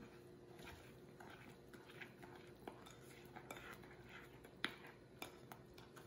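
Faint clinks and scrapes of a metal spoon against a glass mixing bowl while stirring a thick, hot pecan praline mixture partway through microwaving, with a few sharper clicks near the middle.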